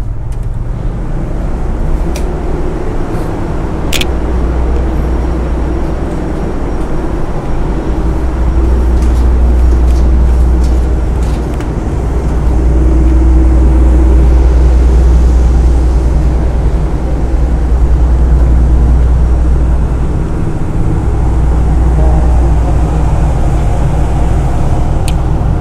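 Wind buffeting the microphone on a ferry's open upper deck: a loud low rumble that swells and dips, with a sharp click about four seconds in.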